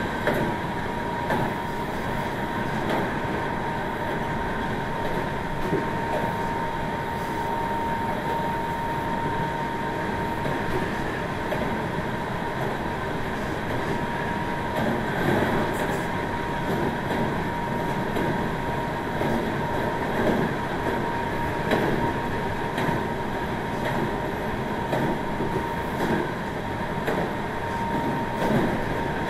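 Meitetsu 1700 series electric train with a Toshiba IGBT VVVF inverter, running at a steady speed. A steady high whine sits over the wheel and track rumble, with scattered rail-joint clicks.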